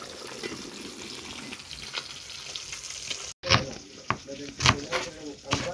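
Rice boiling in an open electric rice cooker, giving a steady bubbling hiss. About three and a half seconds in, it gives way to a knife slicing moringa pods on a cutting board, with several sharp, irregular chopping knocks.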